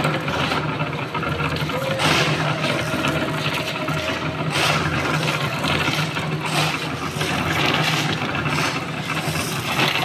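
Concrete mixer running steadily with its drum turning, a constant low hum. Over it, shovels scrape and throw gravel and sand into the mixer's loading skip several times.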